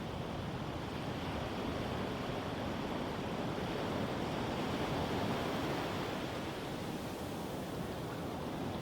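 Medium ocean waves washing onto a sandy beach, a continuous surf wash that swells to a peak about halfway through and eases off again.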